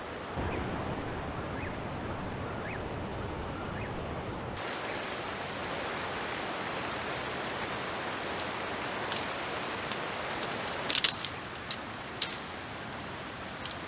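Steady rush of flowing creek water, turning brighter and fuller about a third of the way in. Several sharp clicks and knocks fall over it in the later part, the loudest a short cluster about eleven seconds in.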